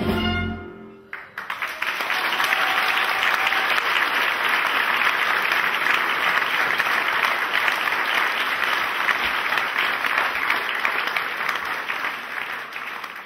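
A small orchestra's final held chord cuts off about a second in, and an audience then breaks into sustained applause that thins out near the end.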